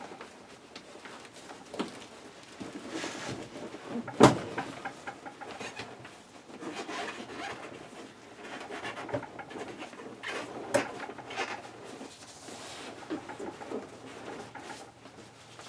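Hand work on a car seat being taken apart: upholstery and plastic parts rustling and squeaking, with scattered clicks and knocks. One sharp knock about four seconds in is the loudest, and another comes about eleven seconds in.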